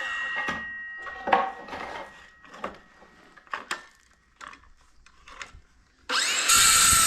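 A cordless drill driving screws into wood runs down just after the start. Scattered knocks and clicks of boards and hardware being handled follow, then the drill starts again about six seconds in and runs steadily.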